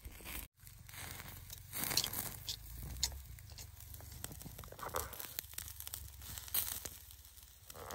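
Open wood-and-charcoal cooking fire crackling, with scattered sharp pops over a low rumble; the sound cuts out briefly about half a second in.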